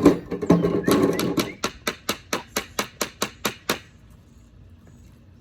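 Hard objects deliberately banged to make noise: a loud clatter, then a fast, even run of about a dozen sharp bangs, roughly five a second, that stops suddenly about four seconds in.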